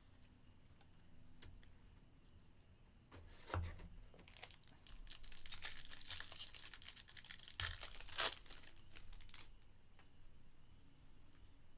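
Foil wrapper of a 2022 Topps Stadium Club Chrome card pack being torn open and crinkled by hand. The tearing and crinkling begins about three and a half seconds in and lasts about six seconds, with a few sharp crackles, the loudest near the end.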